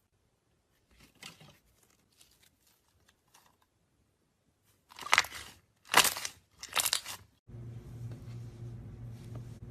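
Slime being worked by hand: faint crackles, then three loud squeezes a little under a second apart. Near the end a steady low hum comes in suddenly.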